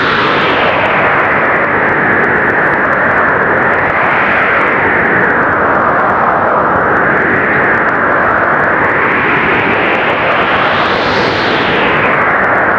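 Strong blizzard wind blowing hard and without a break. Its hiss swells and eases in slow gusts every few seconds, with the highest gust about two seconds before the end.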